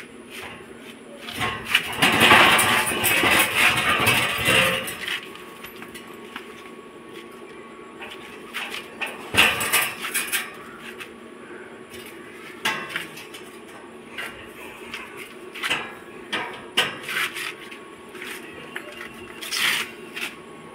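Welded steel-bar cage dragged and shifted on a tiled floor: a scraping, rattling stretch a couple of seconds in, then a series of separate metal clanks and knocks as it is set against the wall.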